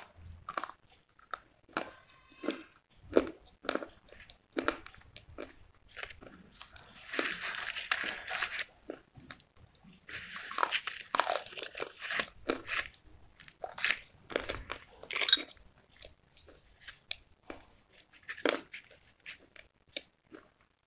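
Slate pencils being bitten and chewed close to the microphone: sharp crisp snaps and crunching in an irregular run, with two longer gritty crunching stretches about a third and about halfway through.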